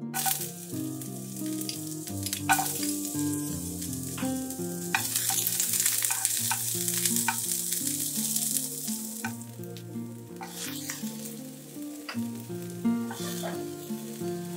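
Sliced onion sizzling in hot oil in a non-stick frying pan as it is stir-fried with metal tongs, with clicks as the tongs and pieces hit the pan. The sizzle starts as the onion goes in, is loudest in the middle and dies back before flaring again near the end as more vegetables go in.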